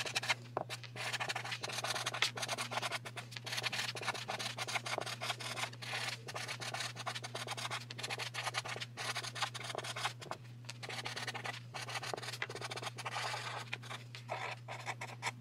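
Orange Sharpie felt-tip marker scratching across card stock while a note is handwritten: a steady run of short scratchy strokes.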